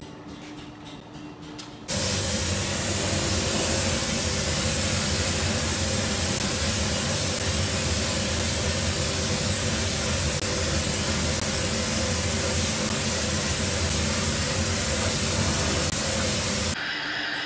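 Compressed-air spray gun spraying white enamel onto a steel sign plate: a loud, steady hiss with a low hum underneath. It starts abruptly about two seconds in and cuts off shortly before the end.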